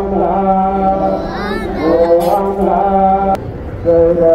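Women's and children's voices singing a slow hymn together in long held notes over a steady low hum. The singing breaks off with a click a little over three seconds in and picks up again half a second later.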